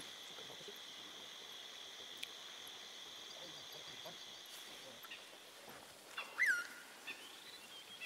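Faint night-time bush ambience: a steady, high-pitched trill of insects, with a short animal call sliding down in pitch about six seconds in, heard twice.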